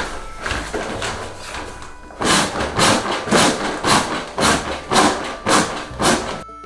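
Built-in foot pump of an inflatable air mattress being stepped on, each step pushing a rush of air into the mat with a crinkle of nylon fabric. About two strokes a second, faint and uneven at first, then louder and regular from about two seconds in, cutting off abruptly near the end.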